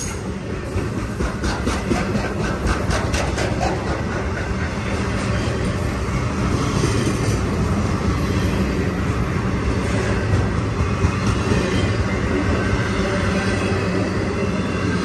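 Intermodal freight train's container-laden well cars rolling past close by: a steady rumble of wheels on rail, with a run of evenly spaced clicks as wheels pass over rail joints between about one and four seconds in.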